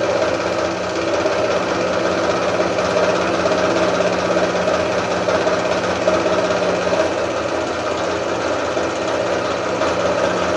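Scroll saw running steadily at a turned-down speed, its fine blade stroking rapidly up and down as it cuts through acrylic sheet; the low speed is set to keep the acrylic from melting back together behind the blade.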